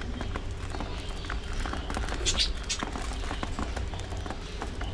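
Budgerigars in an aviary: many small taps and clicks, with two short, sharp high chirps near the middle, over a steady low rumble.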